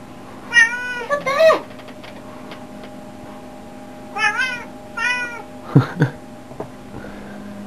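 Ginger-and-white domestic cat meowing four times in two pairs, each call rising then falling in pitch. Two short, lower sounds follow near the end.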